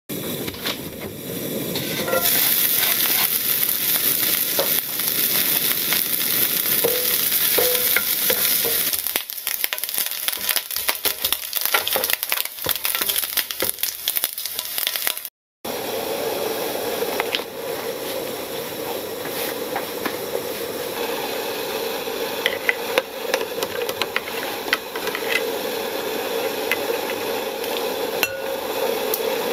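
Diced bacon sizzling and crackling in a frying pan. About halfway through, a sudden cut brings a steadier bubbling sound of water boiling in a pot, with scattered ticks.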